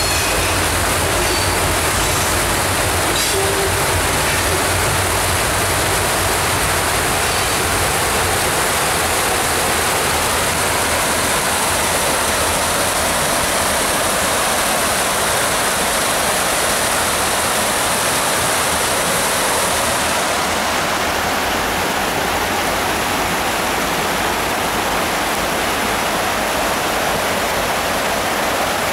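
Creek water rushing steadily over rocky rapids. For the first several seconds, freight cars rumble across the wooden trestle above with a couple of faint, short wheel squeals, and the rumble fades out.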